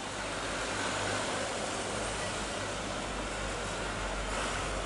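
Jet airliner engines heard from afar: a steady rushing noise with a low hum underneath.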